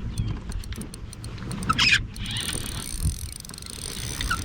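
Splashing and handling noise while a hooked bass is played from a kayak, with rumbling knocks against the hull and scattered clicks. A louder splash-like burst comes about two seconds in.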